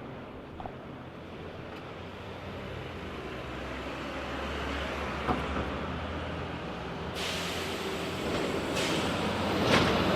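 Road traffic ambience: a steady rumble of passing vehicles that grows gradually louder. A short knock comes about five seconds in, and from about seven seconds a brighter hiss of a closer vehicle builds toward the end.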